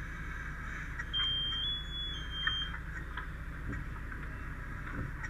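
A high-pitched electronic beep lasting about a second and a half, with a slight jump in pitch and a brief break partway through, over a steady low rumble.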